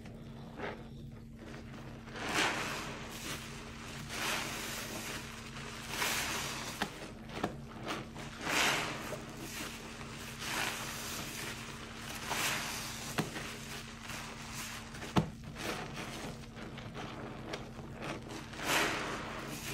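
A Mr Clean Febreze sponge squeezed and kneaded by rubber-gloved hands in a basin of foamy Roma laundry-detergent water: wet squelching and swishing that swells about every two seconds, with a few sharp clicks.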